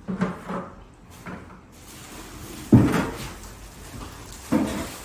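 Two dull knocks, like something solid being set or closed: a loud one just under three seconds in and a smaller one near the end, with light handling noise between them.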